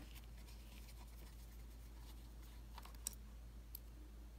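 Faint small clicks and scrapes of a Phillips screwdriver working the screws of an opened laptop, with one sharper click about three seconds in, over a low steady hum.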